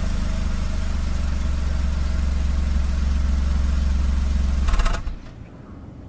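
Exhaust of an MH34S Suzuki Wagon R Stingray Turbo's 660 cc three-cylinder turbo engine idling steadily through the stock muffler, with a deep, even exhaust note. The sound cuts off abruptly about five seconds in.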